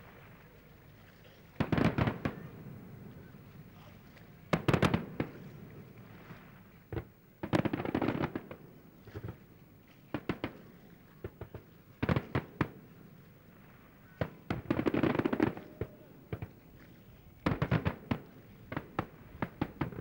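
Fireworks display: aerial shells bursting in clusters of bangs, each followed by crackling, every two to three seconds.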